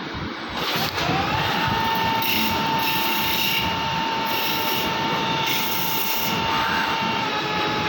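CNC machine running: about a second in, a spindle whine rises in pitch and then holds steady over a loud, steady rushing noise.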